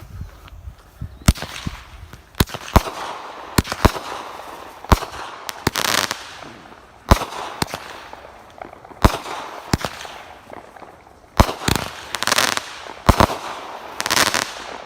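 A consumer firework cake (Phantom Fireworks Glittering Charms) firing its shots: about a dozen sharp bangs at uneven intervals. Several of them are followed by a second or so of hissing crackle.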